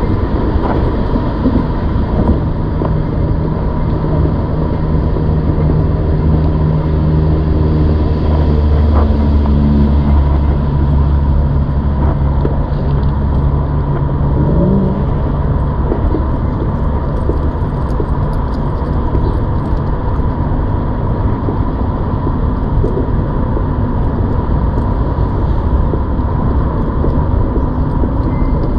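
Steady motor traffic noise. A low engine drone runs through the first half and rises briefly in pitch about fourteen seconds in before fading back into the general rumble.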